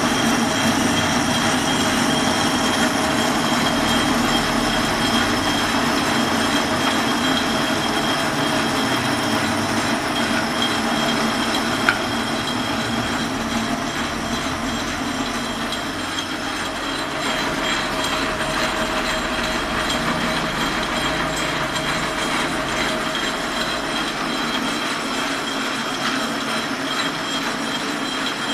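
Geared bench lathe running steadily under power while its tool turns down a steel bar, a continuous mechanical noise with several steady whining tones. A single sharp click about twelve seconds in.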